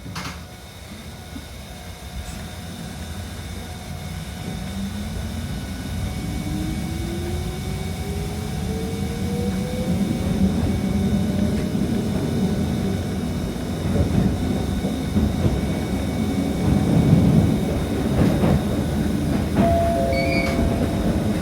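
Toyama Chiho Railway 10030 series electric train pulling away and accelerating, heard from inside the car. The traction motor whine rises steadily in pitch while the wheel and rail rumble grows louder.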